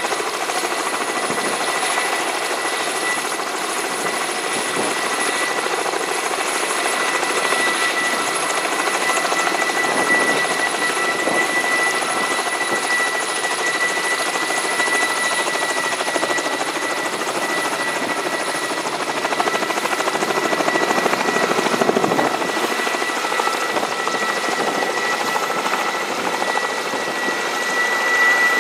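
Kamov Ka-32A coaxial-rotor helicopter running on the ground as it taxis away. Its contra-rotating rotors give a steady rushing noise, and its twin turboshaft engines add a steady high whine.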